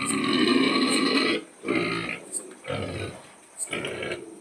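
Pigs grunting: one long, loud call lasting about a second and a half, then three shorter grunts about a second apart.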